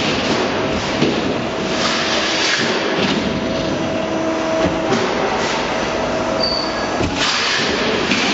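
Steady machinery noise with faint humming tones, a few light knocks breaking through.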